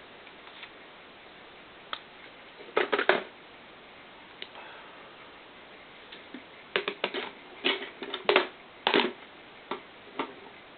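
Clicks and clacks of the Colt M4 .22LR's upper and lower receivers being handled and fitted together: a quick cluster about three seconds in, then a run of sharper knocks between about seven and nine seconds, with a few single clicks.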